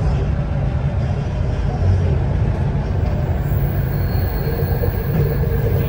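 Metro train running on an elevated track, heard from inside the car: a steady low rumble of wheels and motors, with a faint whine coming in near the end.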